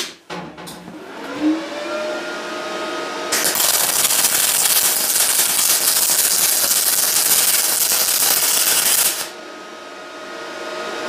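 Parkside PMSG200A2 MIG welder laying a short bead on aluminium square tube: after a click, a hum rises in pitch and settles, then about three seconds in the arc strikes with a loud, steady hiss lasting about six seconds and cuts off sharply, leaving the quieter machine hum.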